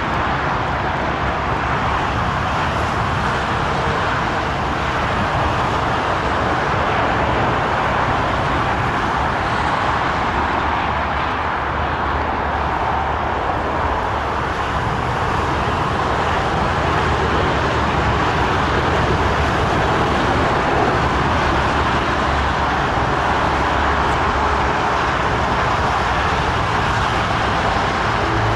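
Boeing 787 airliner's jet engines running as it rolls out along the runway after landing: a steady rushing noise with a low rumble underneath.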